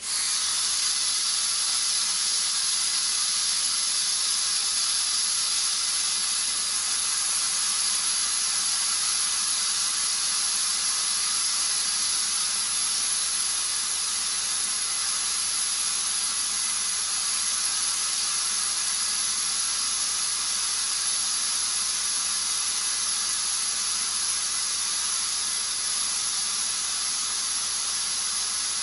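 Compressed air hissing steadily out of the valve stem of a 2011 Chevrolet Volt's left rear tire, let out to drop the pressure so the TPMS sensor registers during a relearn. The hiss starts suddenly and does not let up.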